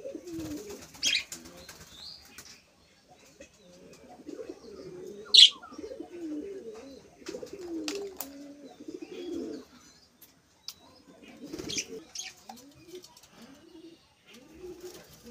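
Pigeons cooing over and over, low and wavering, with a few sharp budgerigar chirps on top. The loudest chirp comes about five seconds in.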